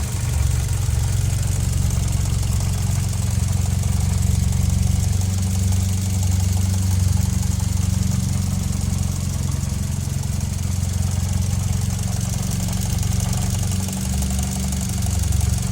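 Mitsubishi Lancer Ralliart's turbocharged 2.0-litre four-cylinder idling steadily with a light, even rattle. The owner found the rattle comes from the engine belt and the SST dual-clutch transmission, and that it is normal for this car. A deeper hum swells briefly near the end.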